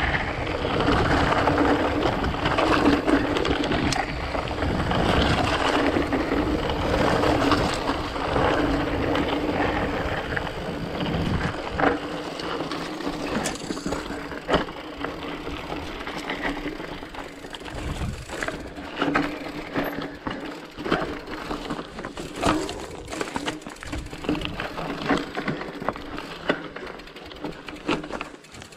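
Mountain bike ridden over a rough, stony trail: tyre noise and the bike rattling, with wind buffeting the microphone at first. About halfway through the wind noise drops and a run of sharp knocks and clatter from the rough ground stands out.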